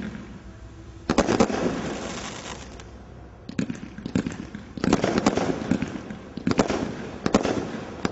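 Category 3 combination Roman candle firing a string of shots, about six in all, spaced one to two seconds apart. Each shot is a sharp report followed by crackling that fades over a second or so.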